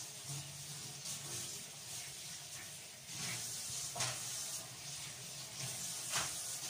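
Tap water running into a kitchen sink while dishes are washed by hand, with a few light clinks of dishes, the sharpest about four seconds in and again near the end.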